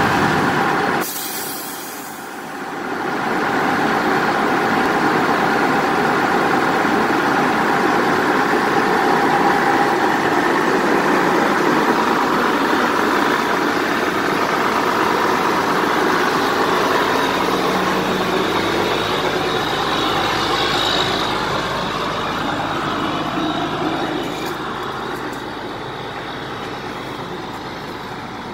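Heavy rescue truck's engine running steadily, with a brief drop in level about a second in and a slight fall in level near the end.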